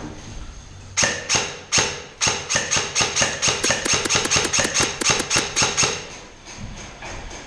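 Airsoft gun firing: a few single shots about a second in, then a quick string of shots at about six a second that stops about six seconds in.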